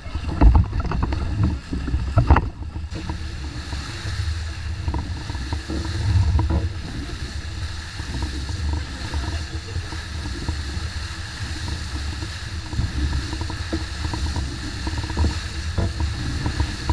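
Hobie 16 catamaran under sail: water rushing and spraying off the hull, with heavy wind buffeting on the microphone. A few knocks come in the first couple of seconds as the crew scramble aboard.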